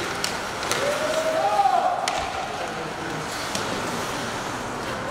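Hockey rink sounds: a few sharp clicks of sticks or puck on the ice over a steady arena background noise, with a voice calling out about a second in.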